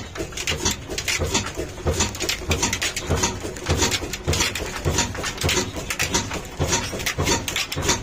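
Ruston Hornsby horizontal single-cylinder stationary engine running during startup, with sharp, uneven exhaust beats about three a second.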